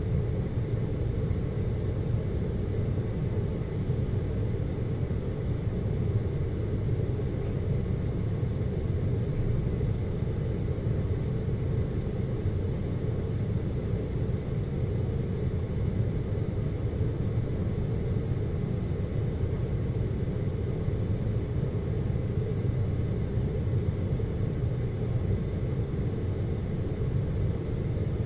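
Seorak cable car cabin travelling along its cable, heard from inside as a steady low rumble.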